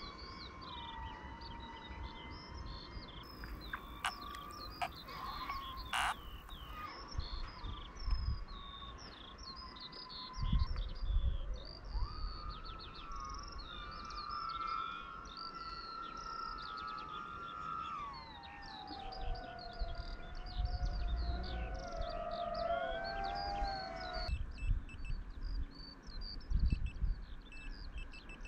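Small birds chirping repeatedly, over the high whine of a DJI FPV drone's motors. The whine rises in pitch, holds for several seconds, then drops and wavers lower as the throttle changes.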